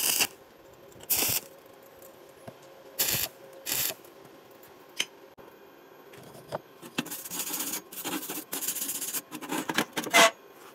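Stick welder striking four short tack welds, each a brief crackling hiss, in the first four seconds. Then the welded steel bracket is picked up, turned over and set down on the steel welding table, with scraping and metal clinks.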